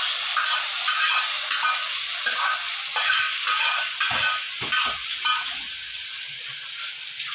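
A hot tarka of oil, fried onion, green chillies and whole spices sizzling as it is poured from a frying pan into a pot of potato and papaya curry, with repeated scrapes of a ladle against the pan, about two or three a second. The sizzle dies down toward the end.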